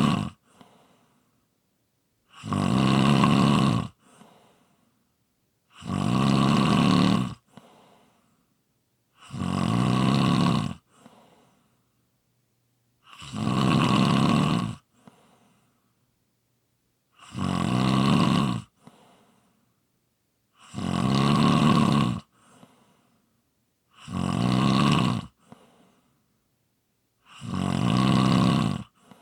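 A person snoring in a slow, steady rhythm: about eight loud, low snores, each lasting around a second and a half and coming roughly every three and a half seconds, each followed by a faint short breath out.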